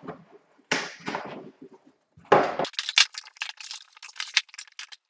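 Keyboard packaging being handled: a few paper-and-cardboard rustles and a knock, then a run of sharp crinkling and crackling like plastic wrap being pulled about.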